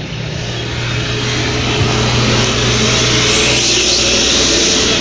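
Tractor engine running steadily with a low drone; a rushing hiss grows louder about two seconds in.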